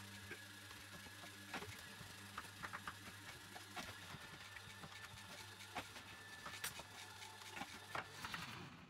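Knife cutting fruit and vegetables on a cutting board: faint, irregular taps and clicks, over a low steady hum.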